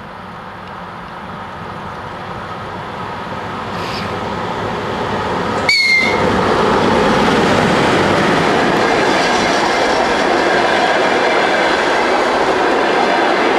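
VL40u electric locomotive hauling a passenger train, approaching and growing steadily louder, then passing close by about six seconds in with a brief sharp high-pitched sound. After that comes the loud steady rumble and wheel clatter of the passenger coaches rolling past.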